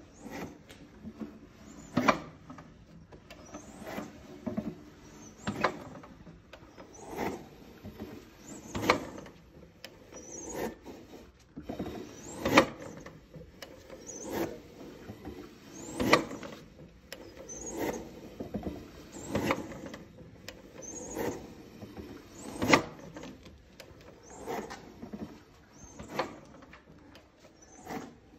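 A sectioned de Havilland Gipsy Major aero engine being turned over slowly by hand with a socket and extension: its internal parts rub and clack, with a sharper knock about every second and three-quarters in a slow, even rhythm.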